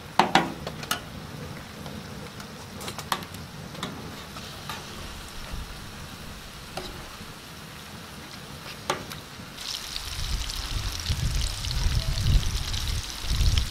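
Fish pieces sizzling in hot oil on a large iron tawa, with a metal slotted spatula clicking and scraping against the pan a few times. About ten seconds in the sizzle turns louder and a low rumble joins it.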